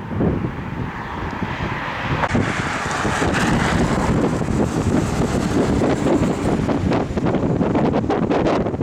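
Wind buffeting the microphone over the rumble of a moving car.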